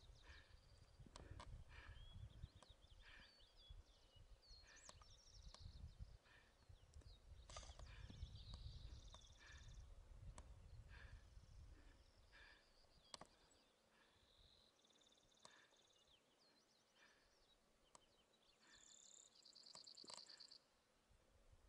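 Faint birdsong in open mountain country, with scattered high chirps and short trills. Low wind rumble on the microphone fades out a little past halfway, and a soft regular tapping runs underneath.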